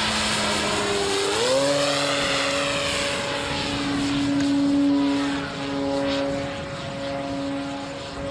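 Radio-controlled electric model aeroplane flying, its motor whine stepping up in pitch about a second in as the throttle opens, then holding steady while the plane passes.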